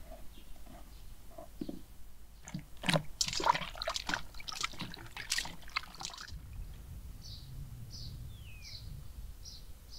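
Water splashing and pouring in a burst of about three and a half seconds, then a low steady rumble. In the last few seconds a small bird chirps repeatedly, about twice a second.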